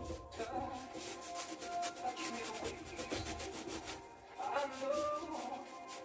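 Acrylic paint being scrubbed onto a stretched canvas by hand, a run of rapid scratchy rubbing strokes that pauses briefly about four seconds in.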